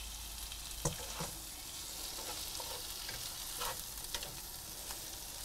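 Bacon, spinach and feta sizzling steadily in a frying pan while a wooden spatula stirs and scrapes through it, with a few short knocks of the spatula against the pan about a second in and again near four seconds.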